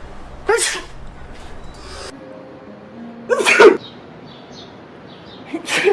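Three staged human sneezes, imitations done on request. One comes about half a second in, the loudest a little past the middle, and a third at the very end.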